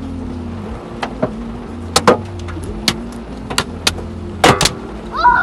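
Large hailstones striking the car's roof and body, heard from inside the cabin: irregular sharp knocks over a steady hum of the engine and windscreen wipers, with two loud hits close together near the end.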